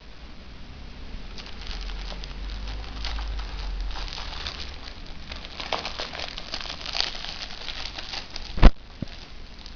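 Toilet-roll wrapper crinkling and tearing as it is pulled open by hand, with a quick run of crackly rustles. A single sharp knock near the end is the loudest sound.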